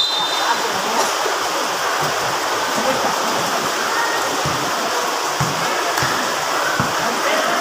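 Crowd at a basketball game: a dense, steady din of many voices cheering and shouting, with a few scattered low thuds.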